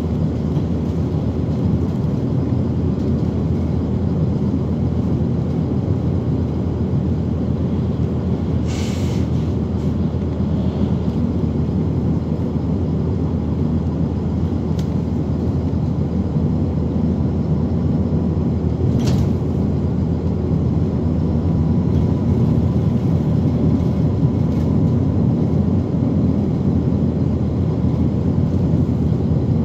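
Van Hool NewA360 city bus heard from inside the cabin while driving at speed: a steady low engine and road rumble. Two short hisses come through, about a third of the way in and again about two-thirds of the way in.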